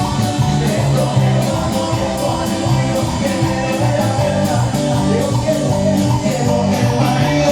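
Live band music with a steady beat: bass and guitar playing an instrumental stretch between sung lines.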